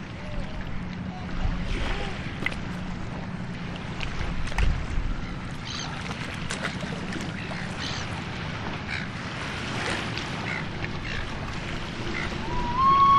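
Outdoor ambience by open water: a low steady rumble with a few faint short calls and clicks. Near the end, a steam locomotive whistle, from LNER K1 2-6-0 No. 62005, starts with a brief upward slide and then holds one clear note.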